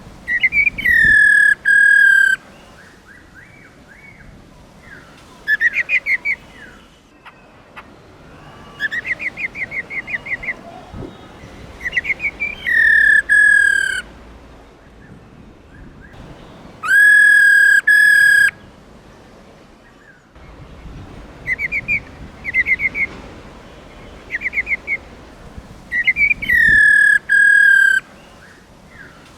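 Female black-throated laughingthrush calling. Four loud whistles that drop quickly and then hold level for about a second each, with runs of fast, chattering short notes between them.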